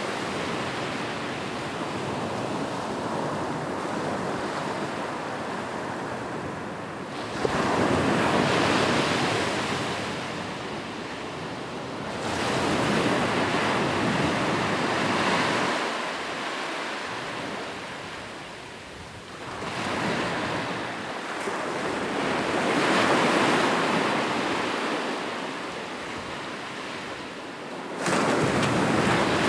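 Sea waves breaking and washing in, a rushing noise that swells and fades with each wave, every few seconds; one wave breaks sharply a little past seven seconds in and another near the end.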